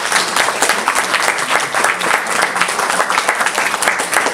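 Audience of children applauding: dense, steady clapping from many hands, loud.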